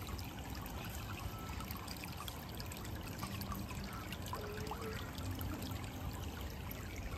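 Water trickling and pouring steadily, as from a swimming pool's overflow or circulation.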